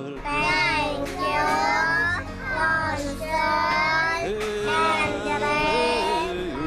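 A song sung by a high, child-like voice in several phrases, over a steady instrumental accompaniment.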